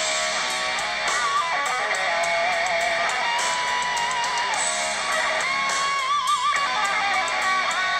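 Guitar music with a wavering lead melody played through the Apple iPhone 7 Plus's built-in speaker, with little bass.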